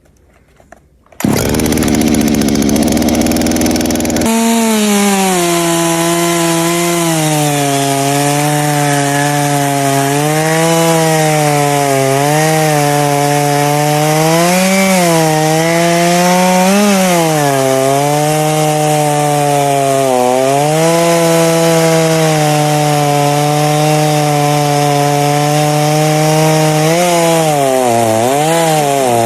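Gas chainsaw cutting through a log at high revs, its engine note repeatedly dipping and recovering as the chain loads up in the wood. It starts about a second in with a rougher, noisier stretch before settling into the steady cutting note around four seconds in.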